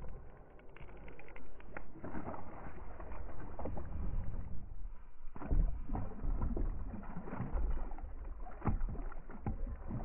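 A hooked smallmouth bass being reeled in on a baitcasting reel from a plastic kayak: reel cranking with scattered knocks and bumps of handling, and the fish splashing at the surface near the end.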